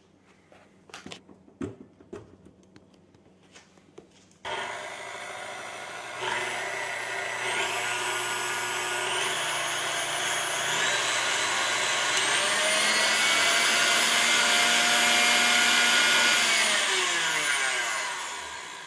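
KitchenAid Classic Plus stand mixer motor, running on freshly replaced brushes. After a few light clicks it switches on suddenly about four seconds in and steps up in pitch several times as the speed lever is moved up. It holds a steady high whine, then winds down near the end as it is switched off.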